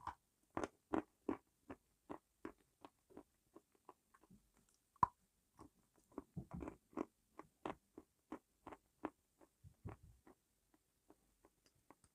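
A person biting and chewing crunchy food close to the microphone: a quick, uneven series of crisp crunches, about two to three a second.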